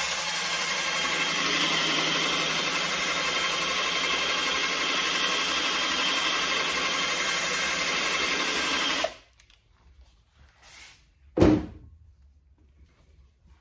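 Cheap cordless drill with a 90-degree attachment spinning a foam polishing pad against a plastic headlight lens, running steadily, then cutting off suddenly about two-thirds of the way through. A single sharp knock follows about two seconds later.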